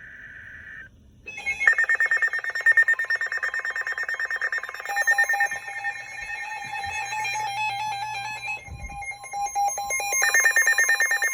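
Emergency Alert System alert tones: a loud, rapidly pulsing electronic alarm sounding in several high pitches at once. It starts about a second in, after a brief steady tone stops, and its pattern changes partway through. It comes just before a spoken high wind warning.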